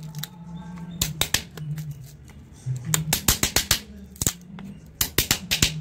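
Hammer striking a steel knife blade to chop a rectangular opening in thin plywood: sharp knocks in quick runs of several strikes, with short pauses between.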